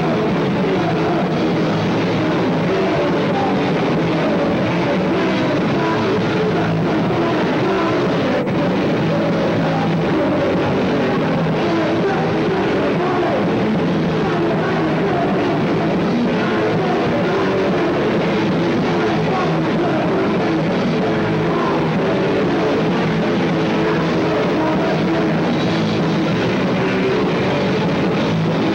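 Live punk rock band playing a song with distorted electric guitar, bass and drums, loud and unbroken.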